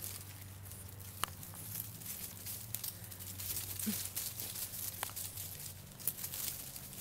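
French Bulldog puppies scampering through dry leaves and sticks: scattered rustling and crackling, with a faint steady low hum underneath.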